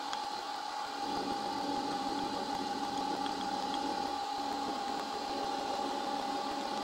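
Milling machine spindle running with an end mill side-cutting two mild steel blocks clamped together, squaring them off: a steady whine with the rough hiss of the cut.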